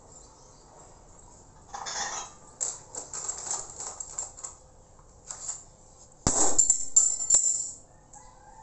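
Metal kitchen utensils clinking and clattering in short bursts, with the loudest metallic rattle and ringing about six seconds in.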